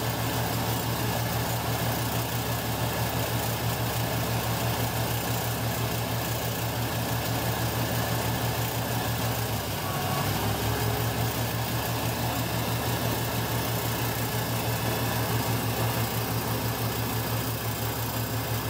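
Freshly rebuilt 327 Chevy small-block V8 running steadily at a fast idle while the carburetor is adjusted, during its first-run camshaft break-in. There is a brief dip in the sound about halfway through.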